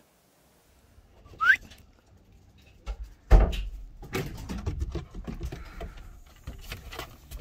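A short rising whistle about a second and a half in, then a sudden heavy thump and continuing scuffling and scraping as a dog clambers in between the vehicle's seats.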